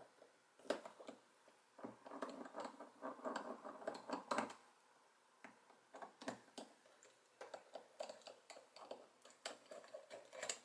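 Faint, irregular small clicks and taps of a metal hydraulic bicycle brake lever being handled on a cloth, with a denser stretch of rustling about two to four seconds in, as the lever is turned upside down to drain brake fluid from its open reservoir.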